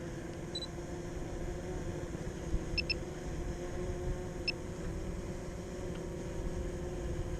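DJI Mavic Pro Platinum drone's motors and propellers humming steadily under wind rumbling on the microphone. A few short electronic beeps sound about half a second in, as a quick double beep near three seconds, and once more after four and a half seconds.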